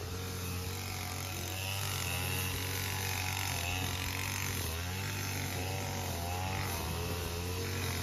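A small engine running steadily, its pitch wavering up and down, over a constant low hum.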